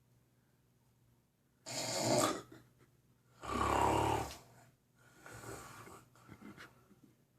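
Heavy snoring with gasping, rasping breaths: quiet for the first second and a half, then two loud snores, the second with a deep rumble, followed by two fainter ones.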